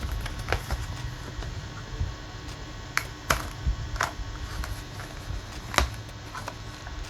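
Scattered sharp clicks and light taps, about half a dozen at uneven intervals, the loudest a little past the middle, over a steady low hum.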